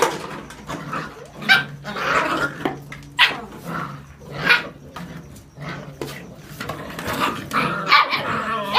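Seven-week-old whippet puppies yapping and play-growling, with short sharp yips at irregular intervals.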